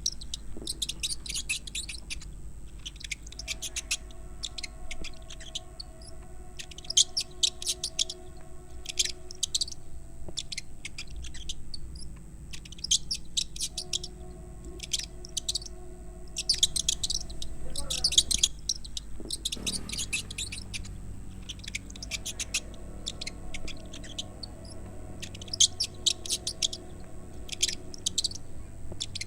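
Mouse or rat squeaking: short clusters of rapid, very high chirps, repeating every second or two throughout, over a steady low hum.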